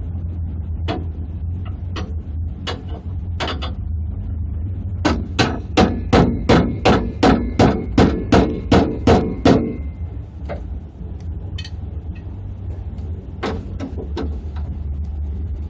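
Hammer striking metal: a few scattered knocks, then a quick even run of about a dozen blows, roughly three a second, then a few more knocks, over a steady low engine idle.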